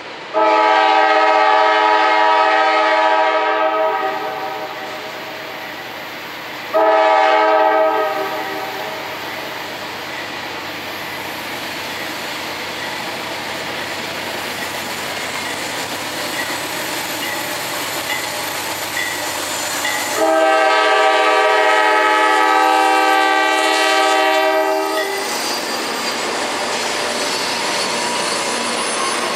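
CSX diesel freight locomotive's multi-note air horn: a long blast, a short blast a few seconds later, and another long blast about 20 seconds in. Between the blasts comes the rising rumble of the approaching train, and near the end the locomotive rolls past with its engine running and wheels on the rails.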